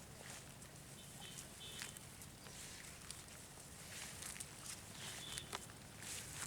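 Faint outdoor background with a few light clicks and short high chirps.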